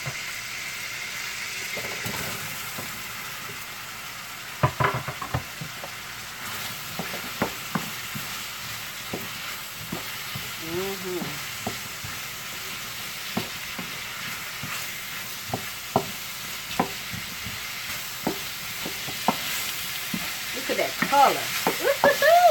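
Chopped bell peppers and onions sizzling in a hot wok with garlic, stirred with a wooden spatula that knocks and scrapes against the pan. The frying is a steady hiss; the spatula knocks start a few seconds in and come thicker near the end.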